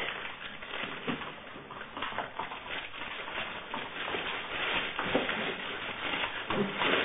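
Great Dane puppies rummaging in a plastic bag: a steady, irregular crackle of rustling plastic mixed with small knocks.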